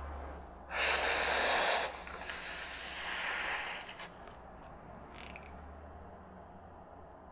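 A man's heavy sigh: a loud breath out about a second in, then a softer, longer breath, followed by a couple of faint clicks over a low steady hum.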